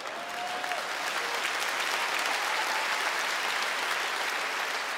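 Audience applauding steadily after a punchline, with a couple of short calls from the crowd.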